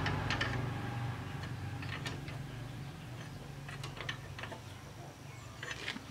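Scattered light metallic clicks and taps of hand tools working on the open cylinder head of a stopped single-cylinder diesel walking-tractor engine, over a low hum that fades out in the first second or two.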